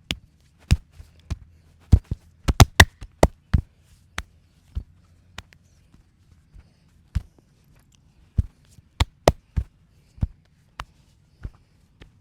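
Hands slapping and tapping during a massage: about two dozen sharp slaps and taps at an uneven pace, coming in quick runs about two seconds in and again about eight seconds in.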